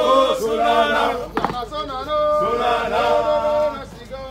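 Police officers singing a marching song as they march, with long held notes that step up and down in pitch. A sharp knock sounds about a second and a half in.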